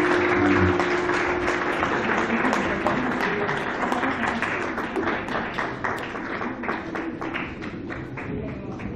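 Audience applauding, many hands clapping and slowly dying away.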